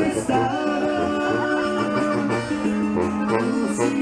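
Instrumental passage of Mexican regional music, an accordion melody over a steady bass line.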